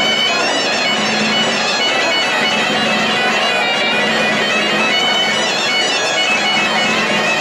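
Asturian bagpipe (gaita) playing a tune over its steady drone.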